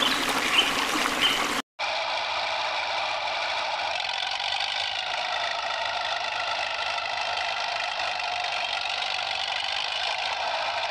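Water splashing briefly, then after a sudden cut a steady whine made of several even tones: the small motor of a toy backhoe loader driving along.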